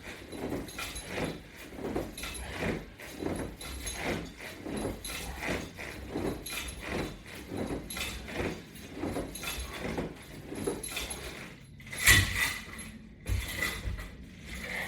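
Resistance-strap crunches: a rhythmic rustle and clink of the strap hardware with each repetition, roughly every two-thirds of a second, with a louder knock about twelve seconds in.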